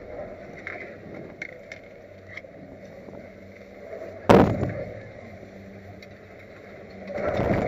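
Chairlift running into its station: a steady rumble with a few light clicks, one sharp, loud metallic clunk a little past halfway, then a louder rumble of the station machinery building near the end.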